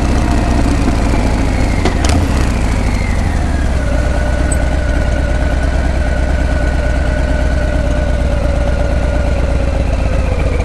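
Harley-Davidson Breakout V-twin idling with a steady low rumble. There is a sharp click about two seconds in, and a whine that falls in pitch over the next two seconds and then holds steady.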